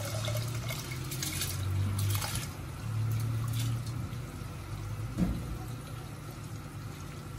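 Soaked basmati rice poured from a bowl into a steel pot of water, splashing in pours over the first three or four seconds, with a light knock about five seconds in. A low steady hum runs underneath.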